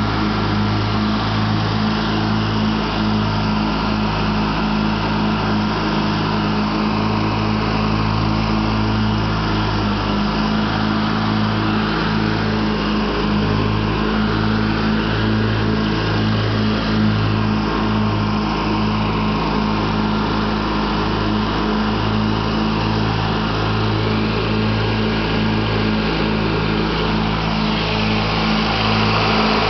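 Craftsman LT1000 riding lawn tractor engine running steadily at throttle while the tractor drives across the lawn. It grows slightly louder near the end as the microphone comes close over the hood vents.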